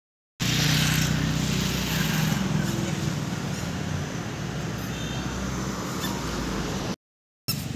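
A motor vehicle's engine running close by, a low steady hum over street noise that starts suddenly and eases off over the first few seconds. It cuts off suddenly near the end.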